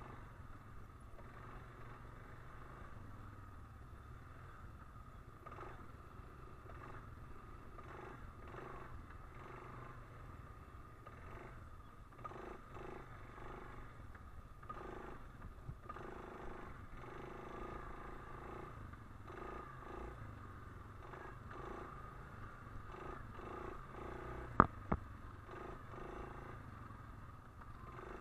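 ATV engine running steadily at riding speed on a dirt trail, a low, muffled rumble. Two sharp knocks come close together near the end.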